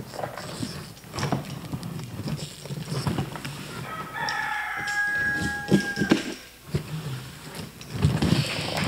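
Rustling, scraping and tapping from a taped cardboard box being cut and opened by hand with a box cutter. About four seconds in, a rooster crows once for about two seconds, its call dropping at the end.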